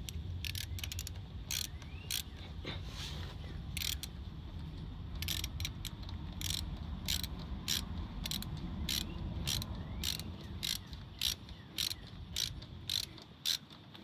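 Irregular sharp metallic clicks from a hand tool working a screw-in emergency valve stem into a wheel rim, a click every half second to second or so, over a low steady rumble.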